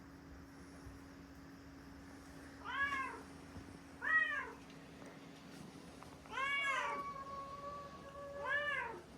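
Domestic cat meowing four times, each call rising then falling in pitch; the third meow is long and drawn out.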